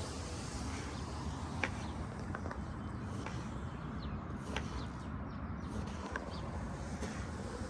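Steady low background noise with a few light, sharp clicks scattered through it.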